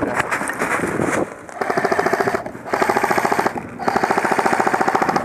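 Airsoft rifle firing on full auto in three rapid bursts, the last the longest, from about a second and a half in.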